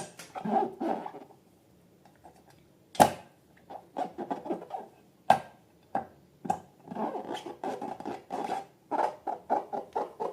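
Slime being worked by hand: irregular sticky clicks, squelches and crackles, with two sharper snaps about three and five seconds in and a quick run of clicks near the end.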